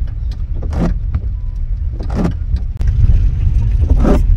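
Car driving slowly through water on a flooded road in rain: a steady low rumble of engine and tyres, with a swish from the windscreen wipers about every second and a half.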